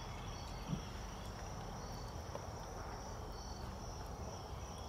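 Faint, steady chirping of crickets in the background, with a brief low sound about three-quarters of a second in.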